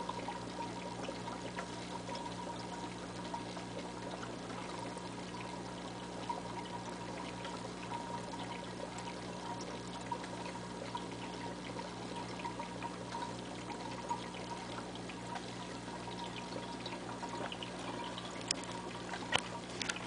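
Aquarium water trickling steadily, with a low hum running under it. A few light knocks near the end.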